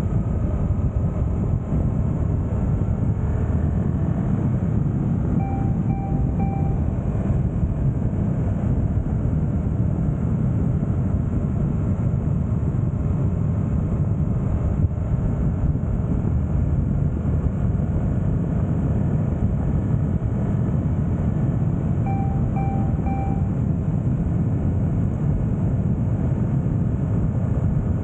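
Suzuki GSX-8S parallel-twin engine pulling steadily in fourth gear at about 75–90 km/h, under heavy wind and road noise. Twice comes a quick run of three short electronic beeps.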